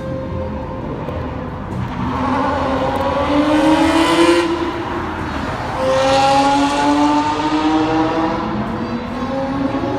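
Supercar engines accelerating hard, the engine note climbing in pitch and loudness to a peak about four seconds in, then a second loud surge about six seconds in that slowly falls away.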